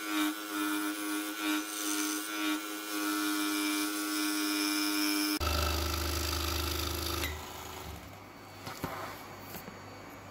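Pégas 21-inch scroll saw running steadily, its fretsaw blade cutting through a wooden tree slice; about five and a half seconds in the sound changes abruptly, and soon after it gets much quieter as the saw is switched off and runs down.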